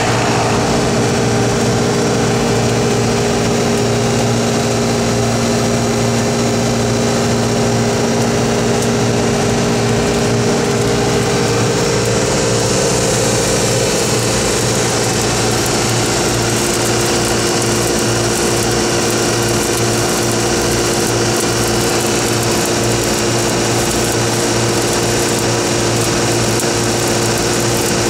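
Engine-driven welding machine running steadily, its tone shifting about halfway through. From about halfway a high, steady hiss of a stick-welding arc grows stronger.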